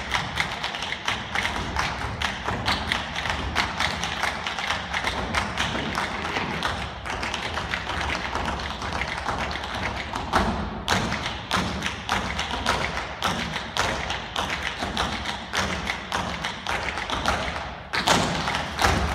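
Two dancers' tap shoes striking the floor in fast, dense rhythms with no accompanying music. There are a few heavier stamps, one about ten seconds in and a cluster near the end.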